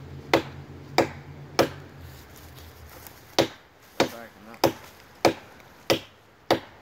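Hatchet blows chopping into the trunk of a standing tree: nine sharp strikes, three in quick succession, a pause of about two seconds, then six more at a steady pace of roughly one every half second.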